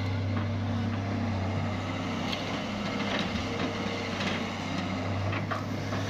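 Diesel engine of a wheeled excavator running steadily under load, a low even drone, with a few light knocks as it works the soil.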